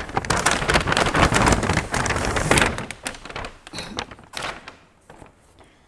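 Paper shopping bag rustling and crinkling as a shoebox is pulled out of it, loud for the first two and a half seconds, then dying down to a few scattered rustles.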